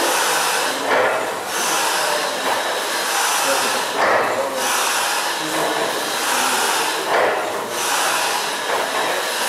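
1895 Worth-McKenzie triple-expansion steam pumping engine running slowly: a steady hiss of steam with a stronger pulse about every three seconds as it turns over.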